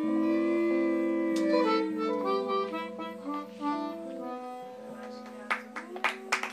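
Bossa nova closing notes on tenor saxophone, harmonica and Gibson ES-335 electric guitar: layered held notes, one bending up and back down, that thin out and fade. Hand clapping starts near the end.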